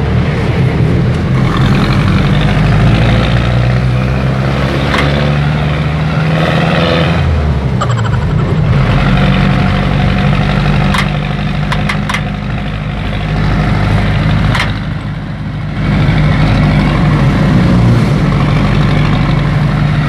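Engine of a small passenger vehicle running while riding, heard from inside the cabin, its pitch shifting as it changes speed, easing off about two thirds of the way through and picking up again. A few sharp rattles or knocks come over it.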